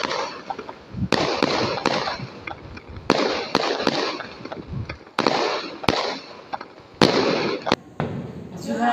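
Fireworks going off: a string of sharp bangs about every second or two, each trailed by crackling.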